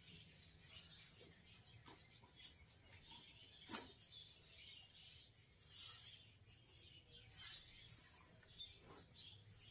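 Faint rustling and crinkling of plastic plant bags and cardboard as potted plants are lifted out of a shipping box, with a few louder crinkles about four seconds in and again near the end.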